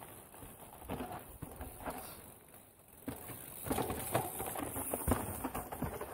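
Hardtail mountain bike rolling down a granite slab and past: tyres crunching over rock and dirt with knocks and rattles from the bike, quiet at first and louder from about three and a half seconds in.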